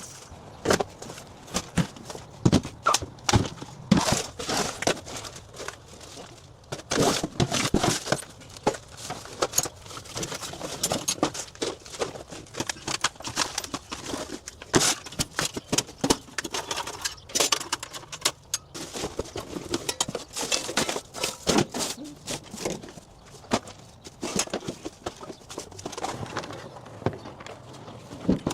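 Irregular knocks, clunks and clatter of household items being picked up, moved and set down, with rustling and crinkling between the knocks.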